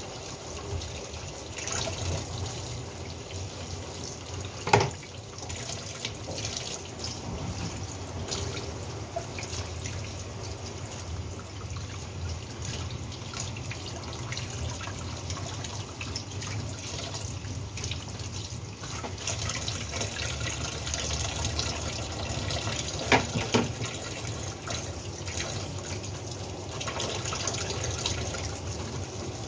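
Kitchen tap running into a stainless steel sink, splashing over a fish as it is scrubbed and rinsed by hand. Two sharp knocks stand out, one about five seconds in and a double one near the end of the third quarter.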